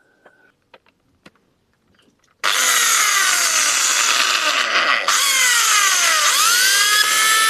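Power drill boring a hole through a hollow aluminium tube. After a few faint clicks the drill starts about two and a half seconds in, stops for a moment about halfway, then runs again, its whine dipping and rising to a steady pitch.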